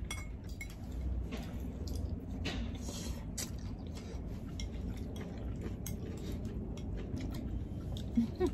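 Close-up eating sounds: chewing, with a metal spoon and chopsticks clicking and scraping against small bowls of noodles.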